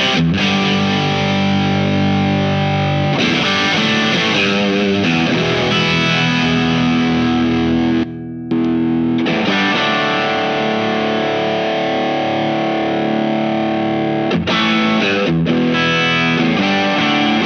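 Fender Aerodyne Special Telecaster on its single-coil pickups played through a Visual Sound Jekyll & Hyde V1 drive pedal: distorted chords and riffs with held chords ringing out. There is a brief break in the playing about eight seconds in.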